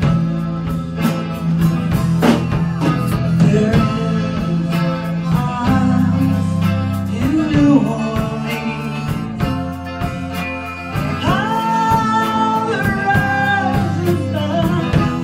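Live country band playing electric and acoustic guitars, bass and drums at a steady beat, with singing.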